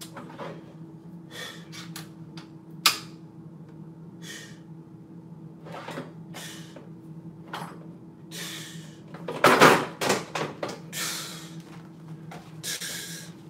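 Tools and bits clattering in a toolbox as it is rummaged through: scattered clicks and knocks, a sharp click about three seconds in, and a burst of loud knocks around ten seconds in.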